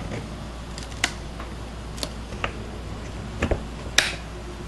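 About six sharp clicks and taps at irregular intervals over a steady hiss and low hum, the loudest near the end.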